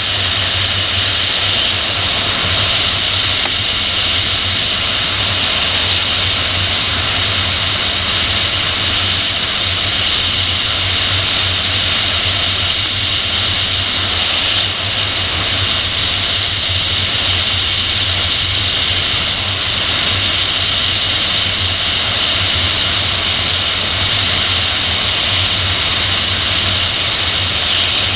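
Steady rush of airflow over the tail-mounted camera of an unpowered PIK-20 sailplane in gliding flight. It is a continuous airy hiss with a low rumble underneath and no change in level.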